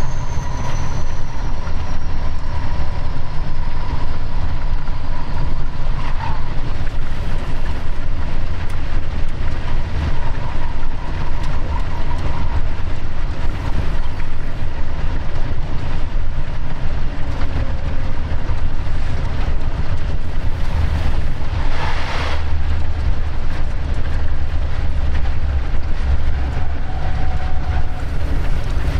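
Locomotive running along the track, heard from inside the cab: a steady low rumble of running noise with a faint steady whine, and a short rushing burst about two-thirds of the way through.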